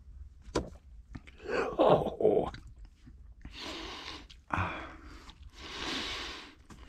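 People chewing and biting food right after a toast, with a sharp click about half a second in and a low grunt soon after. Several long, breathy exhales follow, as after a swallowed drink.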